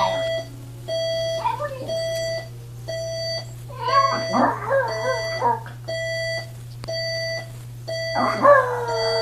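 An electronic alarm clock beeps steadily, about one half-second beep a second, while a Chihuahua howls along over it in wavering, gliding howls: a short one about a second and a half in, a longer one around four seconds, and another starting near the end.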